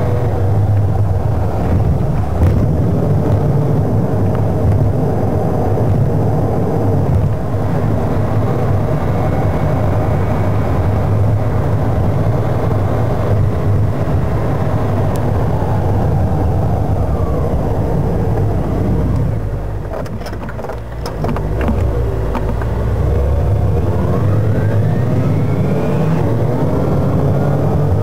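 Engine and road noise heard inside a moving car, sped up about two and a quarter times. It eases off briefly about two-thirds of the way through, then the engine pitch rises as the car picks up speed again.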